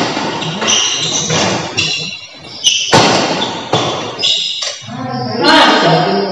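Badminton rally: rackets striking the shuttlecock, sharp cracks every second or so that echo in a large hall, with people's voices near the end.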